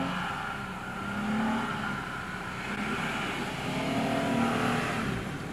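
The Jeep Gladiator Mojave X's V6 engine revving up and down several times as the truck powers through loose sand, with its tyres churning the sand.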